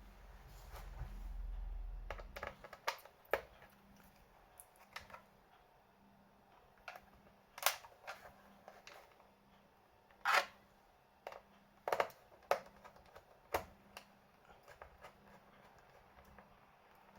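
Irregular sharp clicks and taps of hands handling a laptop's plastic and small metal parts during an SSD swap, with a low rumble in the first two seconds.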